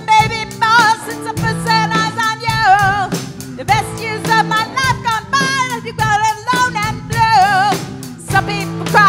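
A live rock band playing a song: a singer with a wide vibrato over electric guitar, bass guitar and a Tama drum kit, the drums keeping a steady beat.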